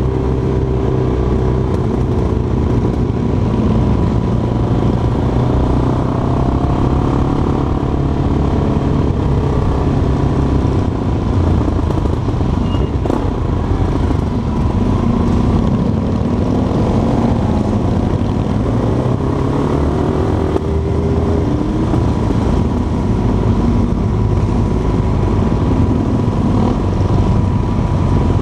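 Motorcycle engines running in a group ride at road speed, heard from one of the bikes. The engine note rises and falls with the throttle over steady road and wind noise.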